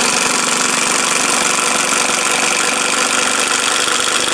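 Makita DTD154 18V brushless cordless impact driver in T mode, hammering a 75 mm wood screw into a wooden post. Its impact mechanism gives a steady, fast rattle at an even level.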